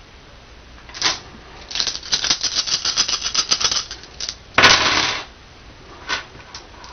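A handful of small dice are scooped up and rattled in a cupped hand for about two seconds as a quick run of clicks. They are then thrown onto a wooden tabletop, where they clatter briefly, the loudest moment. A couple of light clicks follow near the end as the dice are nudged into place.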